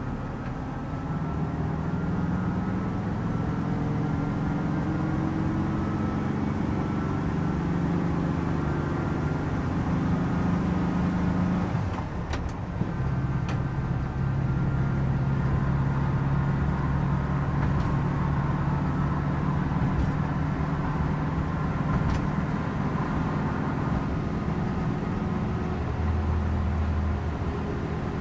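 A 1967 Volkswagen 21-window bus's air-cooled flat-four engine running under way, heard from inside the cabin with road noise. Its pitch climbs over the first several seconds, changes abruptly about twelve seconds in, then holds steady.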